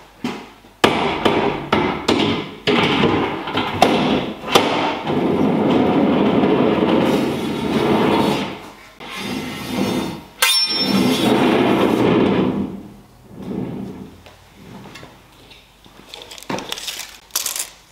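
Aluminium rails of a router sled being handled and set onto the slab: sharp knocks and clatters of metal profile on metal and wood, with two stretches of a few seconds of steady scraping as the sled slides along its rails.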